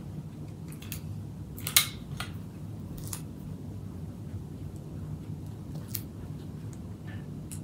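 Scissors snipping several times in short, sharp clicks, the loudest about two seconds in, over a steady low hum.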